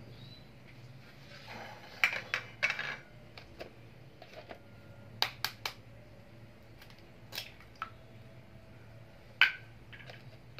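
Egg being cracked into a bowl: a string of sharp clicks and knocks as the shell is tapped against the bowl and a metal spoon clinks in it. The loudest knock comes near the end.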